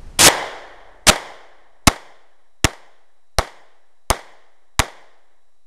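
Sig Sauer P938 compact 9mm semi-automatic pistol fired seven times in a steady string, about one shot every three-quarters of a second. The first shot is the loudest.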